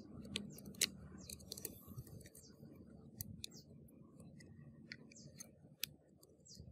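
Fingers, then a screwdriver, scraping and picking caked dirt and dry husks out of a plastic radio case, giving irregular small clicks and scratches.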